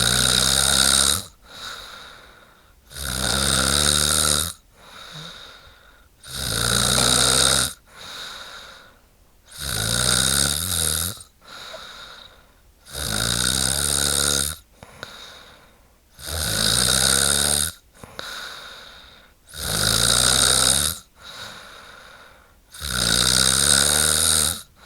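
A woman snoring in a steady rhythm: a loud snore about every three seconds, each followed by a softer breath.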